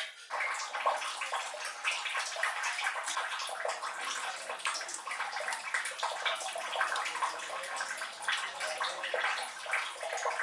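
Running tap water splashing: a steady rush full of small splashes, as when chicken pieces are washed under the tap.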